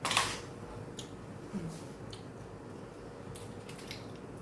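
Soft handling noises in a small room: a brief rustle at the start, then a few faint scattered clicks and ticks.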